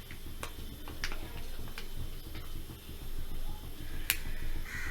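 Several sharp, irregular clicks and light taps, the loudest about four seconds in, over a low steady hum: handling noise in a kitchen while a small kadai of frying oil is set up.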